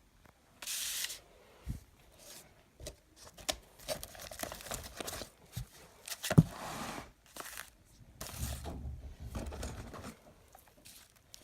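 Packaging being opened and handled by hand: bursts of tearing and rubbing with scattered clicks, and one sharp knock about six seconds in.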